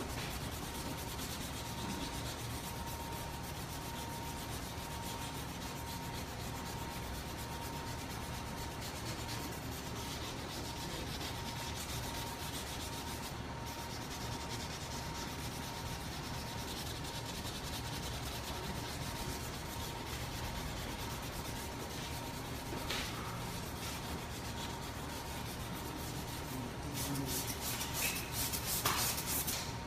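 Hand wet-sanding of a car's painted bumper: a sanding pad rubbing back and forth over the wet paint, a steady rubbing that is the first sanding stage on a damaged spot before filler and paint. Near the end, a handheld spray bottle squirts water onto the panel several times.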